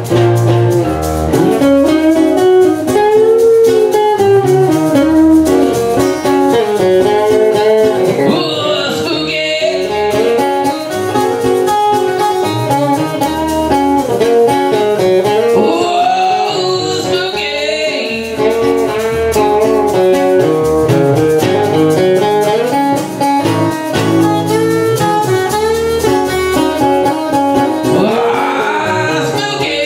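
Acoustic guitars playing an instrumental break in a blues-tinged song: a lead acoustic guitar takes a solo over strummed chords from the other guitars.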